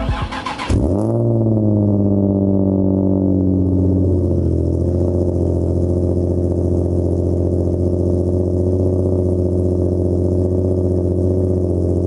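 Nissan 350Z's V6 engine starting about a second in. The revs flare up, sink over a few seconds and settle into a steady idle.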